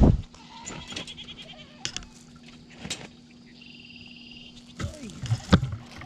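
Sheep bleating, with one short call that falls in pitch about five seconds in, among scattered knocks and thumps, the loudest at the very start.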